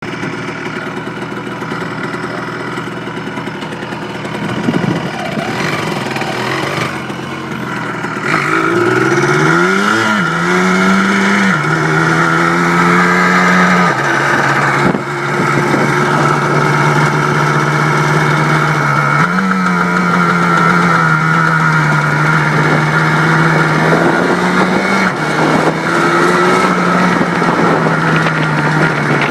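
Yamaha Blaster ATV's single-cylinder two-stroke engine being test-run after a rebuild. It catches about eight seconds in and revs up, then runs at a fairly steady speed, with its pitch dropping and rising slightly a few times.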